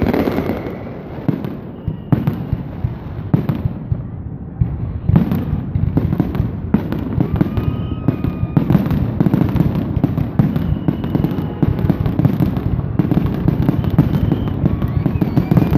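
Aerial fireworks bursting overhead: scattered bangs at first, then from about five seconds in a dense, continuous run of bangs and crackling.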